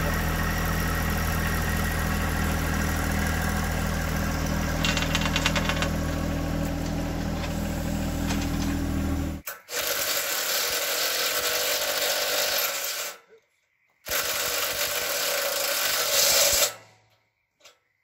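A John Deere compact tractor's diesel engine idling steadily, with a brief rapid metallic rattle about five seconds in. The engine sound cuts off sharply a little past halfway. It is followed by a loud, even rushing noise in two stretches, broken by a moment of silence.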